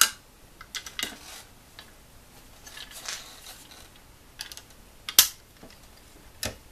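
Sharp metallic clinks, the loudest about five seconds in, with a short scraping rattle in between, as an aftermarket electronic distributor is handled with a screwdriver against its cap.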